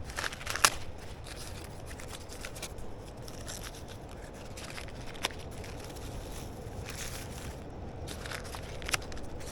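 Paper being handled, torn and crumpled into a tinder pile, with rustling and a few sharp clicks over a steady low background rumble.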